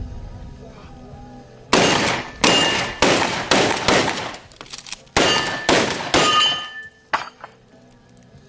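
Mossberg 590 pump-action 12-gauge shotgun firing eight rapid shots, about half a second apart: five, a pause of about a second, then three more, each with a short ringing tail. A fainter sharp report follows near the end.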